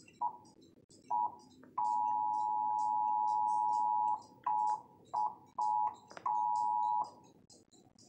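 Emergency Alert System attention signal, the steady two-tone alarm at about 853 and 960 Hz, playing from a television and dropping in and out in glitchy fragments. There are two short bursts, then one unbroken stretch of about two seconds, then four more short bursts.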